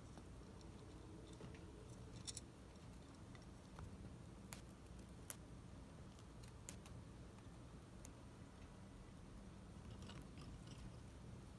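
Chinchilla chewing dried food, faint, with a handful of short sharp crunches scattered through it over a low steady hum.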